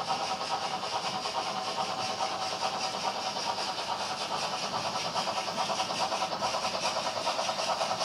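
Model train running: the small electric motor of a Fleischmann BR 94 model tank locomotive whirring, and the wheels of a long string of model tank wagons clattering rapidly and steadily over the track.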